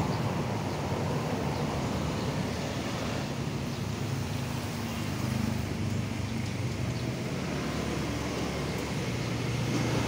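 Steady road-traffic hum with a low engine drone underneath, an even background with no distinct events.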